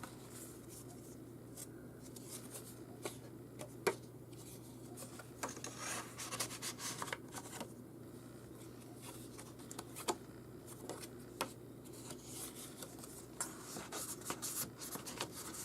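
Faint rustling, rubbing and light taps of cardstock pages and small paper booklets being handled and flipped open, scattered irregularly, over a low steady hum.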